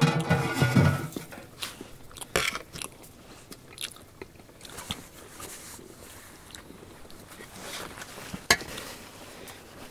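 A metal lid clattering off a large cast-metal cooking pot in the first second, then broth bubbling in the pot with scattered clinks of a metal ladle against the pot and a bowl, one sharp clink near the end.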